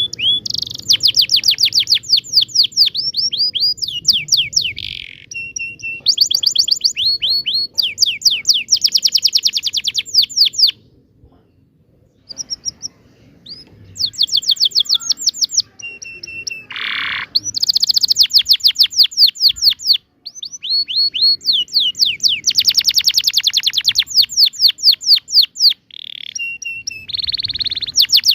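Domestic canary singing a long song of rolling trills: fast runs of repeated sweeping notes, the note type changing every second or two. The song breaks off for a couple of seconds about eleven seconds in, then resumes.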